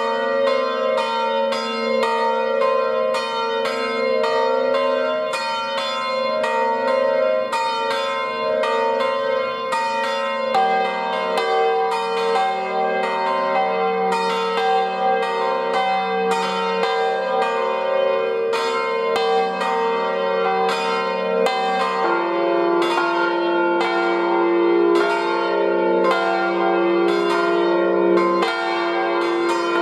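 Peal of swinging Rüetschi bronze church bells in an open concrete tower, several bells striking over and over in an overlapping rhythm, ringing to call to Sunday service. The mix of notes shifts about ten seconds in, when a deeper tone enters, and again around twenty-two seconds.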